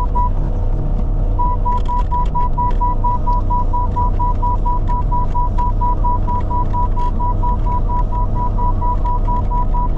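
Diesel engine of a compact Bobcat machine running steadily, with its warning beeper sounding a rapid, even string of short beeps at one pitch, about four a second, and scattered clicks and knocks from the work.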